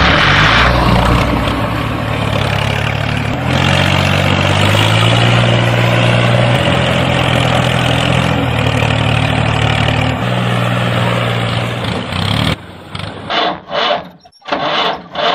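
Tractor engine running steadily as if under load, its pitch shifting up and down a few times. About three seconds before the end it breaks off into a few short, uneven bursts.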